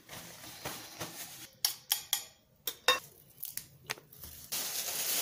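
Kitchen handling sounds: several short sharp clicks and rustles from bowls and fresh herbs being handled, broken by brief gaps of dead silence, then a steady rushing noise starts about four and a half seconds in.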